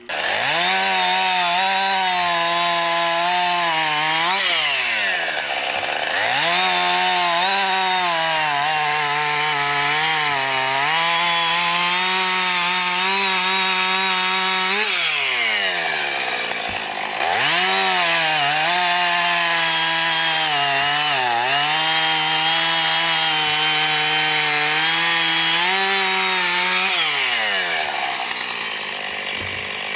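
Husqvarna chainsaw with a 16-inch bar cutting a dead ash log. The engine runs at high revs under load and sags slightly now and then in the cut. Twice it drops back and revs up again, and it falls to idle near the end.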